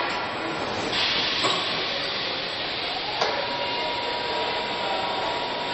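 Car assembly line machinery running with a steady hiss, a louder hiss about a second in, then a click about three seconds in followed by a steady thin tone.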